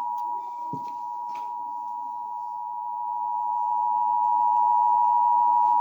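Emergency alert attention tone: one steady, unbroken electronic tone that switches on sharply and grows louder partway through. It is the alarm signal that comes before a broadcast weather warning, here a National Weather Service severe thunderstorm warning.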